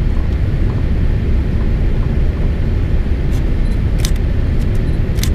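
Steady low rumble of Boeing 787-8 cabin noise on approach, engine and airflow noise from the GE GEnx turbofans heard inside the cabin at a window seat over the wing. A few sharp clicks come through about three to five seconds in.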